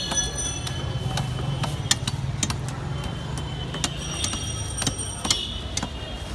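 Snakehead fish being cut on a boti, the upright fish-cutting blade: irregular sharp clicks and scrapes as the fish is worked against the blade, over a steady low hum.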